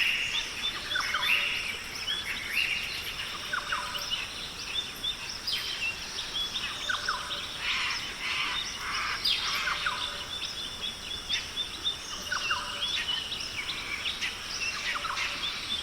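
Birds chirping and calling over a steady high insect hum, a continuous outdoor nature ambience with many short chirps and quick falling whistles.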